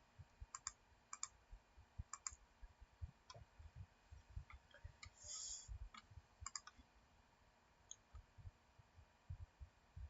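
Near silence with faint, irregular clicks, several coming in quick pairs, over soft low knocks, and a brief hiss about five seconds in.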